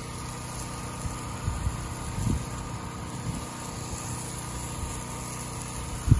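A spray wand shooting a stream of cleaning solution onto asphalt roof shingles, hissing over a steady engine hum. A few low bumps, the loudest at the very end.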